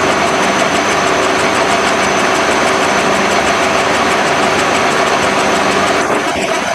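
A machine running steadily and loudly, with a fast, even ticking over its hum.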